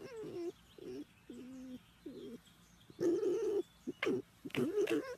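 Pet red fox making a series of short, low whining calls with wavering pitch while being stroked. About seven calls, the loudest about three seconds in.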